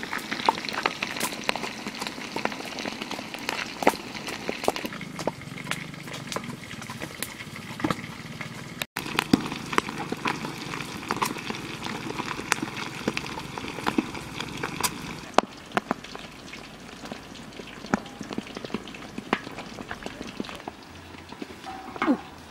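Whole fish and duck eggs frying in a large wok of foaming oil: a steady sizzle with many small crackles, broken by a brief gap about nine seconds in.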